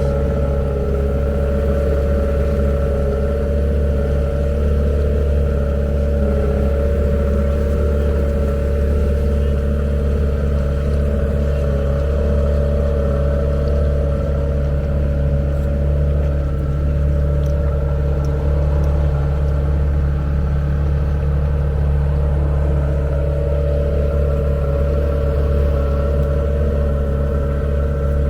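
Dinghy's outboard motor running steadily at a constant cruising speed, with a deep, even hum.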